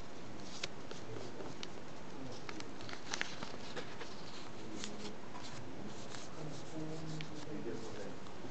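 Small sheet of origami paper rustling and crackling as fingers fold and crease it, with scattered small crackles.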